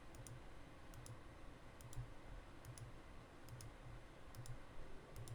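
Faint computer mouse clicks in quick pairs, about one pair every second, seven in all, over quiet room tone.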